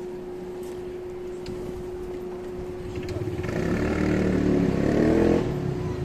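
A road vehicle driving past, its engine note rising in pitch as it accelerates. It grows louder from about halfway through and is loudest near the end, over a steady hum.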